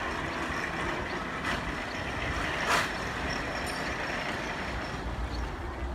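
Amphibious tour bus engine running as the bus drives away, with two short knocks, one about a second and a half in and one near three seconds in.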